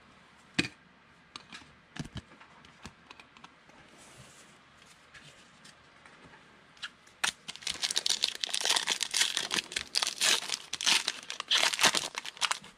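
A few scattered light clicks and taps as cards and plastic holders are handled, then, about seven seconds in, the plastic wrapper of a trading card pack crinkling and tearing as it is ripped open by hand for about five seconds.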